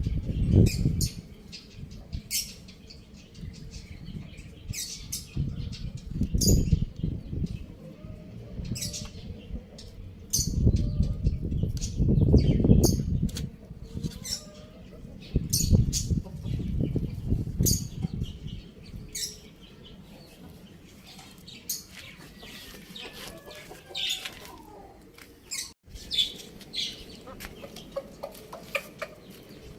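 Chickens moving about, with many short high chirps or clicks scattered throughout and several louder low rumbling bursts, the biggest about eleven to thirteen seconds in.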